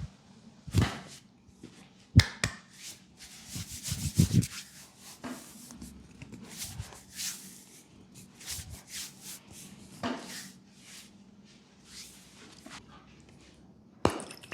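Hands rubbing and working over the skin of a leg during a massage: irregular rubbing strokes with a few sharp slaps, the loudest about two seconds in.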